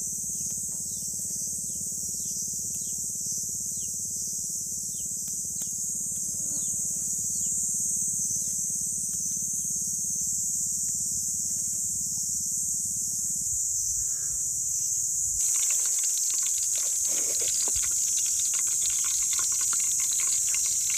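Steady high-pitched drone of tropical cicadas, with short falling bird chirps over it in the first half. About fifteen seconds in, a denser crackling hiss comes in under the drone.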